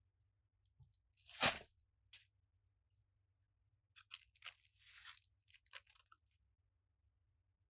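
One loud knock about a second and a half in, as the saucepan is turned out over the wooden board. Then, from about four seconds on, parchment paper crinkles and tears in a run of short crackly bursts as it is peeled from the sides of the sponge cake.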